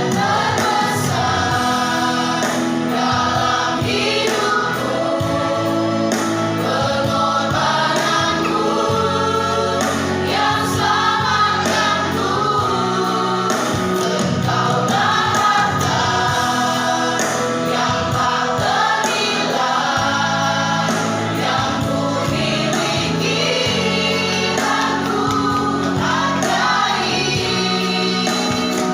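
Church choir singing a gospel hymn in several voices, with a steady instrumental accompaniment underneath.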